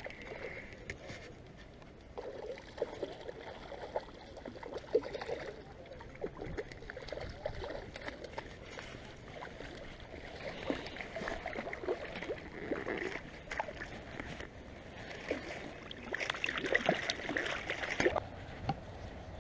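Stream water splashing and trickling, with many scattered clicks and knocks close to the microphone; the splashing grows busier and louder about three-quarters of the way through.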